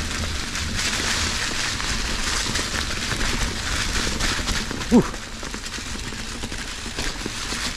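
Fezzari Cascade Peak mountain bike rolling along a dirt trail: a steady crackling rustle of the tyres over the ground with low rumble on the camera. One brief rising pitched sound about five seconds in.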